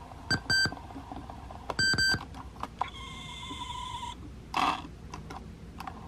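Sony WM-EX555 Walkman cassette player being operated by its front buttons: short electronic confirmation beeps, a pair about half a second in and another about two seconds in, with clicks of the keys. A steady tone sounds for about a second near the middle.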